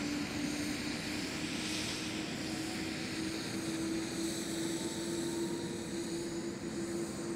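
Robinson R66 helicopter's Rolls-Royce RR300 turboshaft running with the rotor turning just after start-up. A steady turbine whine rises slowly in pitch over the rotor and airflow noise.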